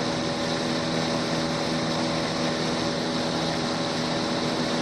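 Small fishing boat's motor running steadily as the boat moves across the lake, a constant hum of several tones over a broad hiss.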